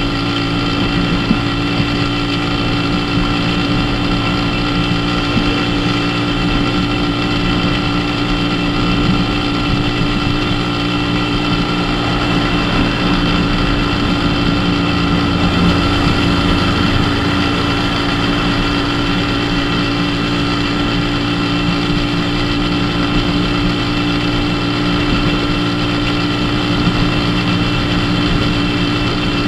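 Dafra Super 50cc moped's small engine running at a steady cruising speed, holding one even pitch throughout.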